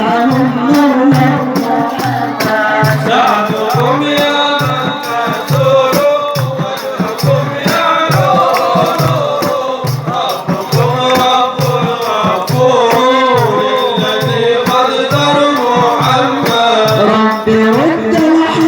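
Sufi devotional inshad: a male voice singing a winding, melismatic Arabic melody over a steady hand-drum beat, a little more than one stroke a second, with rattling percussion.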